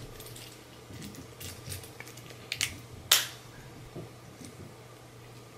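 Citizen wristwatch being handled and fitted back onto its case: light clicks and rattles, with a quick pair about two and a half seconds in and a single sharp click, the loudest, just after three seconds.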